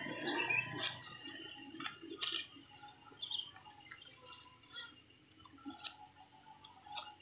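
Faint, irregular crinkling and crackling of a thin plastic grafting strip being stretched and wound by hand around a coffee seedling's graft union, in short scattered bursts.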